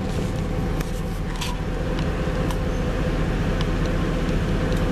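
Pickup truck engine running steadily at idle, a low rumble, with a few light clicks from the box or camera being handled.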